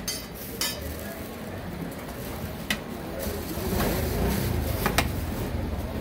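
Metal serving utensils clinking against a cooking pot, a few sharp clinks a couple of seconds apart, over a steady low background din that grows a little louder past the middle.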